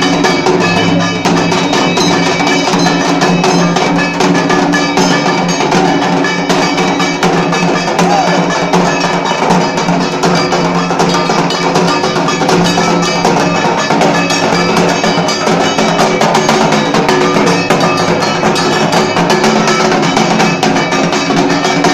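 Dhak, the large Bengali barrel drum, beaten fast and hard with sticks, with a metallic clanging beat running alongside.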